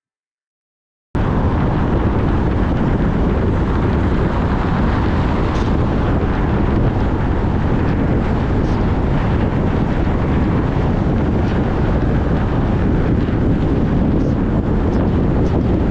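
Steady rushing noise of a car driving on wet roads in rain, strongest in the low rumble. It starts abruptly about a second in.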